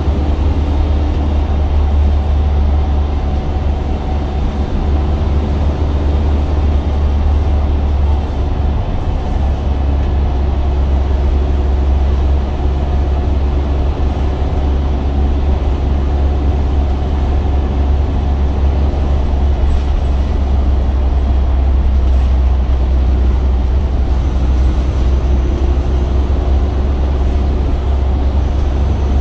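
Wrightbus GB Hawk single-deck bus under way, heard from inside the rear of the cabin: a steady low diesel engine drone with road and body noise.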